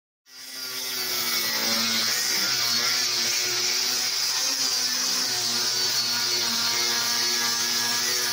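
Angle grinder with a sanding disc running against a pallet-wood board, sanding its face. It comes up within the first second and runs steadily, a motor hum under a strong hiss.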